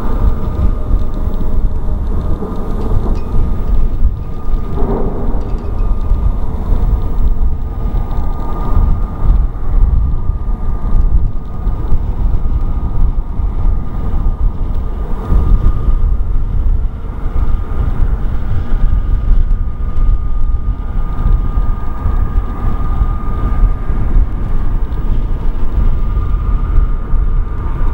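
Twin-engine jet airliner's engines running as it rolls along the runway: a deep, steady rumble with a thin, steady whine over it.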